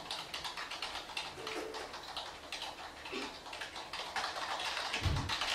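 Room noise with many faint, irregular clicks and ticks, and a short low thump near the end.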